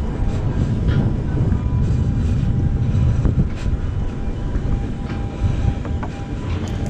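Wind buffeting the microphone, a steady low rumble, with a faint steady hum underneath.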